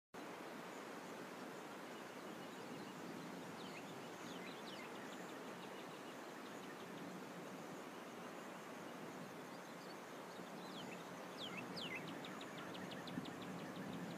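Outdoor ambience: a steady, faint background hiss with scattered small bird chirps a few seconds in and again later, then a quick run of evenly spaced chirps near the end.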